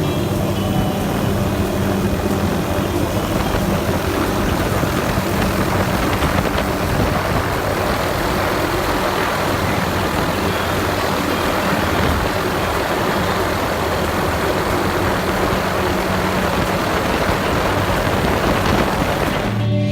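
Helicopter in flight heard from inside a doors-off cabin: a steady drone of rotor and engine under a heavy rush of wind. It cuts off suddenly at the very end.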